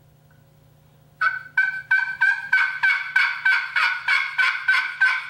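Holland Custom Calls glass-surface turkey pot call with a dense wood pot, played with a carbon striker. About a second in it starts a steady run of about a dozen raspy hen yelps, roughly three a second.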